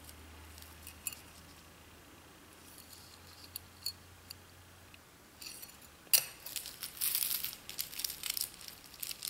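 Beaded jewelry being handled: a few faint clicks of beads at first, then a sharp click about six seconds in and a few seconds of dense clinking and rustling as the beaded necklace is set down and the next pieces are moved.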